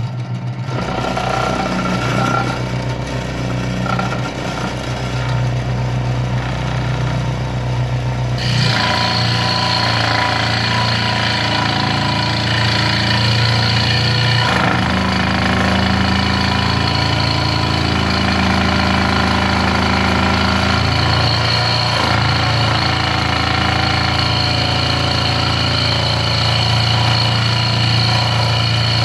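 Scheppach SD1600V scroll saw's motor running with its blade stroking up and down, then the blade sawing into a thick block of wood with a steady, loud vibrating buzz; the sound shifts about eight seconds in.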